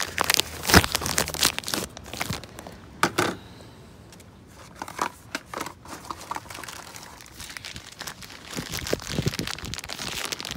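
Irregular crinkling and scraping with scattered sharp clicks and knocks, as of hands handling parts or material; loudest in the first second and around three seconds in, quieter after that.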